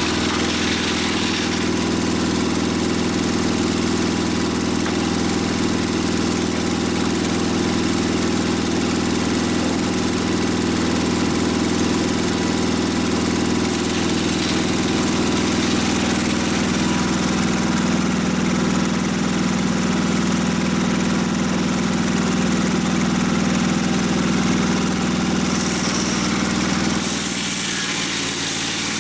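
Mobile Dimension sawmill's engine running steadily; its note changes near the end.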